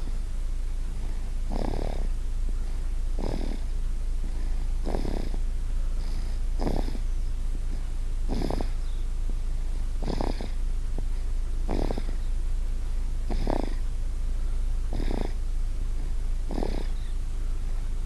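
A one-year-old child snoring in her sleep: short snores at an even rhythm, about one every second and a half to two seconds, ten in all, over a steady low hum.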